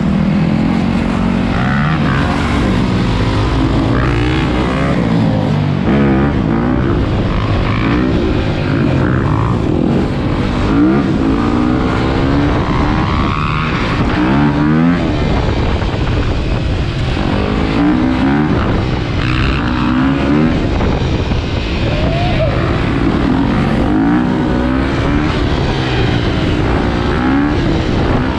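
Dirt bike engine revving hard while riding, heard from the bike itself, its pitch climbing again and again through the gears, with other dirt bikes and a quad running alongside.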